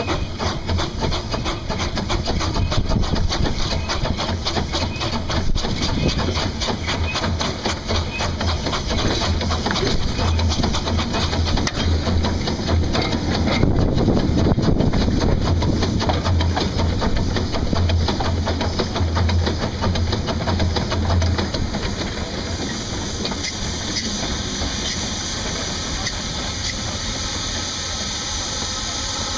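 Kerr Stuart Wren-class narrow-gauge saddle-tank steam locomotive running, heard from its footplate: a steady hiss of steam over a quick, regular beat from the engine.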